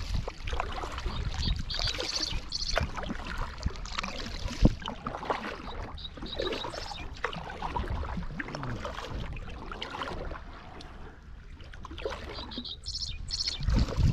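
Water splashing and trickling around a kayak as it is paddled in and moved, with scattered small knocks and one sharp thump about four and a half seconds in.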